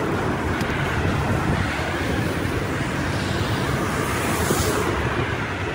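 Steady road traffic noise mixed with wind buffeting the microphone, heard while riding a bicycle along a busy road. A brighter hiss swells briefly about four and a half seconds in.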